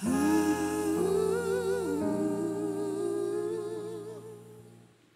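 Two male voices holding the closing note of a ballad duet in harmony, with vibrato, over sustained accompaniment chords. The note fades away near the end.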